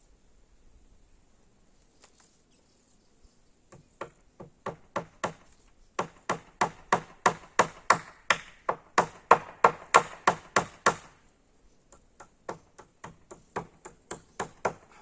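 Hammer blows, struck repeatedly at about three a second. A few spaced strikes come first, then a loud steady run, a short pause, and lighter strikes near the end.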